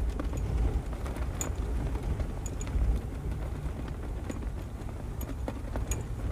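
Strong wind buffeting the microphone with a heavy low rumble, while a flag on a tall flagpole flaps in the gusts. Irregular sharp cracks and clinks come from the flag and its pole rigging.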